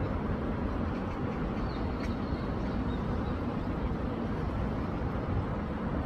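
A swollen city stream running high after rain, its water giving a steady low rushing sound.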